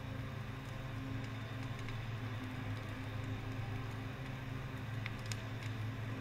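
Wind-driven ember shower blasting a house in a fire test: a steady low drone of blowing air with hiss and patter, and a few faint crackles about five seconds in as the fuel at the base catches.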